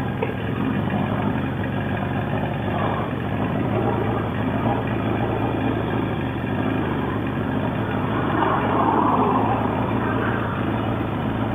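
Motorcycle engine idling steadily while held in stopped traffic, a low even hum, with a swell of louder traffic noise about eight seconds in.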